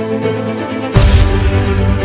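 Background music with sustained string tones. About a second in, a sudden loud, deep hit starts a new theme.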